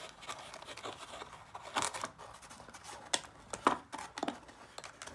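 Clear plastic coin capsules holding silver medallions clicking and scraping as they are handled in a velvet-lined presentation box. A series of irregular sharp clicks and short scrapes.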